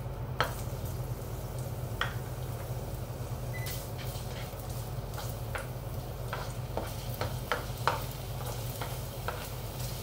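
Ginger sizzling in hot oil in a nonstick wok, with a spatula scraping and tapping against the pan as it is stirred, in repeated short clicks that come more often in the second half.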